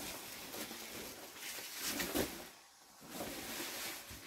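A plastic tarpaulin rustling and crinkling as it is lifted, shaken out and spread over the floor, in a few swishing swells, the loudest about two seconds in.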